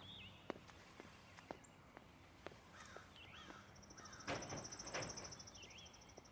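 Faint birdsong. One bird repeats a short rising-falling chirp every couple of seconds, and another gives a rapid high trill through the second half. Scattered soft clicks and a brief rush of noise about four seconds in.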